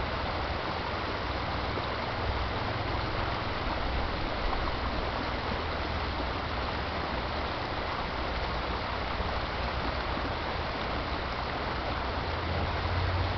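Mountain creek flowing over rocks, a steady rush of water with a low rumble underneath that grows a little louder near the end.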